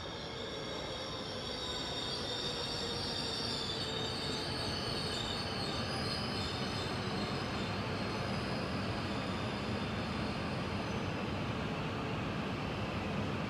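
E5-series Shinkansen bullet train passing at high speed along the platform track: a steady rushing roar of wheels on rail and air, building over the first few seconds and then holding. Faint high-pitched tones drop slightly in pitch about four seconds in.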